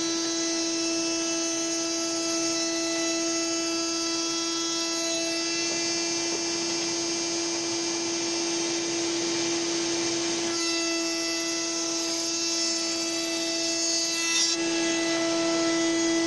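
Router spinning at full speed in a router table, a steady high whine, cutting a bead profile along tulipwood strips as they are fed past the bit, with a workshop vacuum extractor running alongside. The cutting sound changes a few times as one strip ends and the next goes through.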